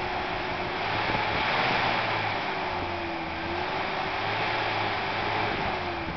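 1982 Toyota pickup's engine running steadily, its pitch wavering slightly, while a Seafoam cleaning treatment burns off as exhaust smoke.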